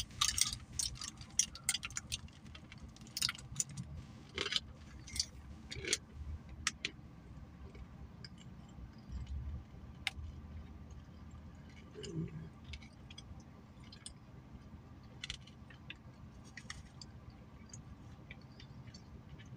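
Scattered light clicks and rustles of a breakfast sandwich and its wrapper being handled and eaten, over a faint low hum. The clicks come thickest in the first several seconds and again a little past the middle.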